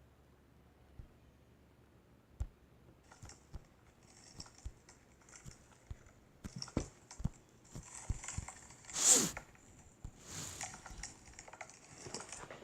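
Slime being worked by hand: a run of small sticky clicks, pops and crackles, with a louder wet squelch about nine seconds in.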